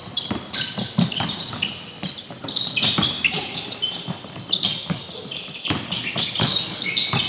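Basketball dribbled on a hardwood gym floor, a run of sharp bounces at an uneven pace, with sneakers squeaking on the wood.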